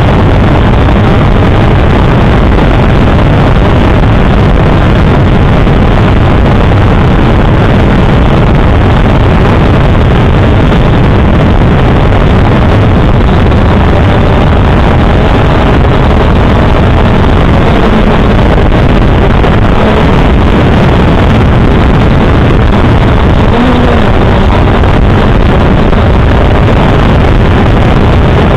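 A small camera drone's electric motors and propellers in flight, heard through its own onboard microphone: a loud, steady whirring rush whose pitch wavers slightly.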